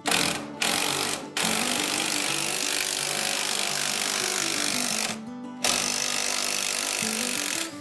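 Ryobi cordless impact wrench hammering on a rusted shock absorber nut, in a few short bursts and then two long runs with a brief pause between, to spin the nut off. Background music plays underneath.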